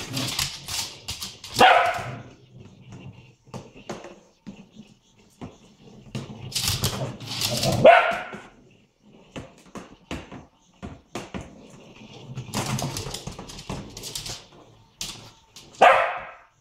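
Small dog playing with a ball, giving three sharp barks, the last near the end. Each bark comes after a second or two of rough growling and scuffling, and short clicks and taps of paws and claws on the wooden floor fall in between.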